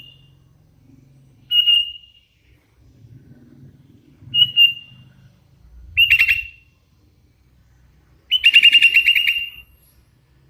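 Young hand-fed sooty-headed bulbul calling: short, high whistled notes every couple of seconds, then a fast run of about ten notes near the end.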